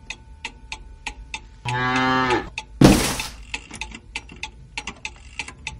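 Cuckoo clock ticking steadily, about three to four ticks a second. About one and a half seconds in, a cow moos once for under a second; just before three seconds in, a short, loud rush of noise is the loudest sound, and then the ticking carries on.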